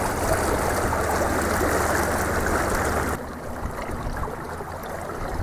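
Water rushing and hissing past the hull and in the wake of a small sailing trimaran under way. About three seconds in it cuts abruptly to a quieter, softer wash of water.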